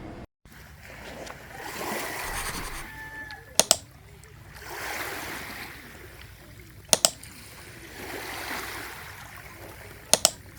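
Washing machine drum turning with water and clothes sloshing inside: a wash swells about every three seconds, with a sharp double click or knock after each swell.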